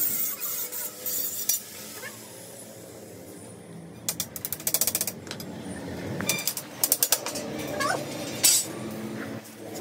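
Stainless-steel window grill tubes clicking and rattling against one another and the concrete floor as they are lined up by hand, in quick runs of clicks about four seconds in and again near seven seconds, with a sharper knock shortly after.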